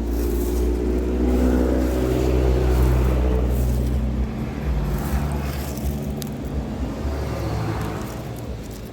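Homemade scrap-built stone crusher with a flywheel running: a steady, loud mechanical hum from its drive and flywheel. It swells to its loudest about three seconds in, then slowly eases off as the pitch drops.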